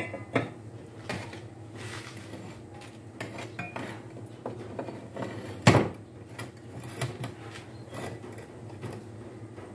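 Steel parts of a homemade angle-bar bender clinking and knocking against each other as they are handled and worked, with one louder metal clank about six seconds in.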